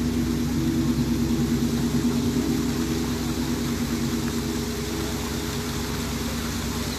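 A large gong left ringing after a strike, a low layered hum that slowly fades, over the steady rush of a waterfall.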